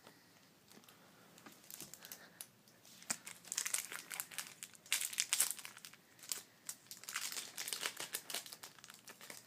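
Foil wrapper of a trading-card pack crinkling as it is torn open and handled, in bursts of rustling from about three seconds in.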